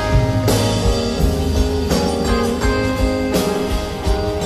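Live band playing an instrumental passage of a slow song: guitars and bass over a drum kit, with a cymbal stroke about every second and a half.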